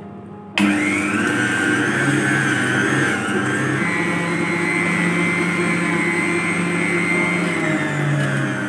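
Electric stand mixer switched on suddenly about half a second in, then running steadily as its whisk whips cream in a stainless steel bowl.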